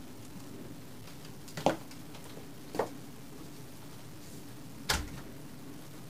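The outside door being opened and shut: three sharp clicks and knocks from the latch and door, the last with a dull thump, over a steady low hum.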